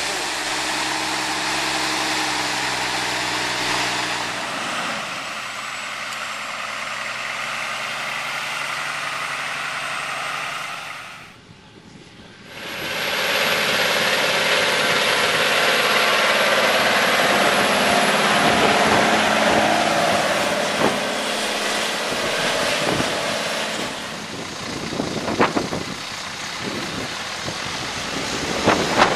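Heavy diesel engines of farm tractors and semi-trucks running in a harvest field. After a short drop, a loaded Volvo semi-truck's diesel engine pulls steadily through deep mud, with a few sharp clicks about three-quarters of the way through.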